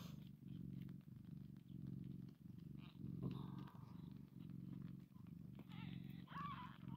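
Nursing mother cat purring softly while her newborn kittens suckle. The low purr comes in steady in-and-out stretches, pausing briefly with each breath.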